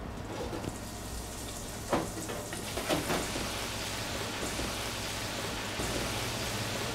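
Battered zucchini fries deep-frying in 350-degree peanut oil in an electric deep fryer: a steady bubbling sizzle. Two brief knocks come about two and three seconds in.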